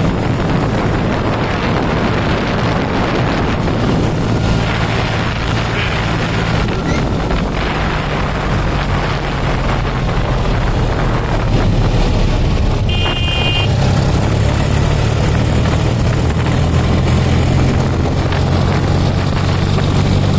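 John Deere 5045D tractor's three-cylinder diesel engine running steadily under load at road speed, heard from the driver's seat, with a broad rush of wind and tyre noise on the wet road. A short high beep sounds briefly about two-thirds of the way through.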